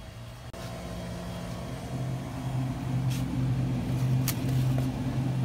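Steady low hum of a reach-in bait freezer, getting louder about two seconds in, with a couple of short clicks as frozen bait boxes are handled.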